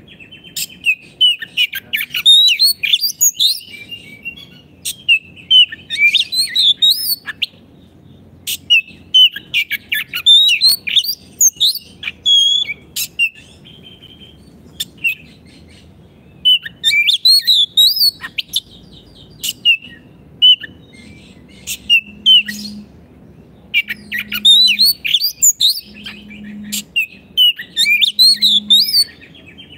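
Oriental magpie-robin (kacer) in full song: bursts of rapid, varied whistled and chirping phrases broken by short pauses, with a longer pause about halfway through. This is a vigorously singing ('gacor') bird of the kind played to train other kacers.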